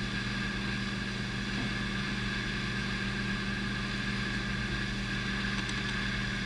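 Steady low mechanical hum with no change in level or pitch.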